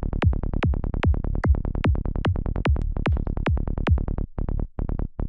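Psytrance kick and rolling bass in the key of D from the KickNBassGel software synth, looping at a fast steady tempo: a punchy kick dropping in pitch on each beat with short bass notes between the kicks. The kick drops out about four seconds in, leaving the bass notes.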